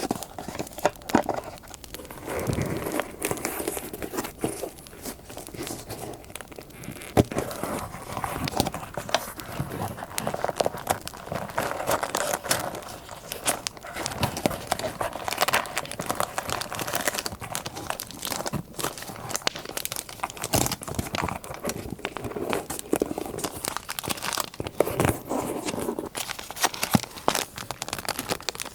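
Paper crinkling and rustling as it is handled, with bits of tearing, made of many small irregular crackles. A soft campfire crackle plays underneath.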